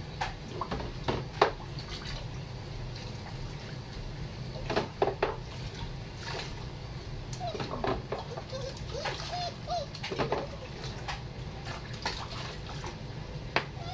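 Water splashing in a kitchen sink as a Vizsla puppy is bathed and has water poured over him from a mug, with sharp irregular splashes and knocks. Several short, high puppy whimpers come around the middle.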